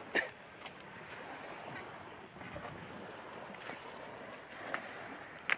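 Steady outdoor rushing noise, with a sharp click about a quarter second in and two fainter clicks near the end.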